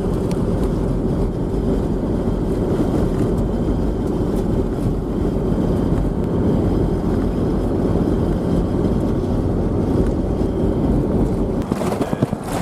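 Four-wheel drive travelling on a dirt road: steady engine and tyre rumble, heard from inside the vehicle.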